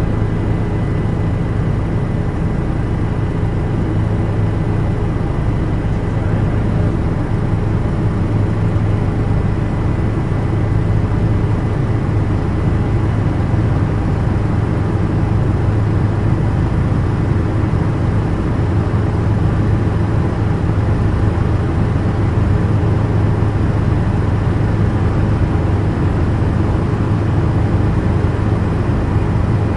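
Helicopter in flight heard from inside the cabin: a steady, loud drone of rotor and turbine with a strong low hum and a faint high whine, unchanging throughout.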